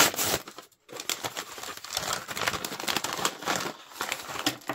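A Mini Fashion paper blind bag being torn open and crumpled by hand: a dense crinkling rustle, loudest at the very start, with a short pause just under a second in.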